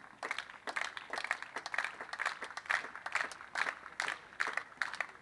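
Light applause from a small crowd of spectators: many uneven, separate hand claps.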